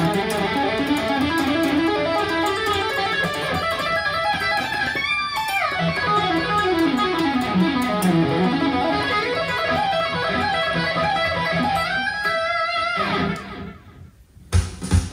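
Schecter electric guitar playing a long, fast bluesy shred lick with tapping: octave arpeggios, quick C-sharp minor pentatonic six-note runs and a closing arpeggio, with a fast falling run partway through and a slide up and back down near the end. The guitar stops, and a drum beat starts just before the end.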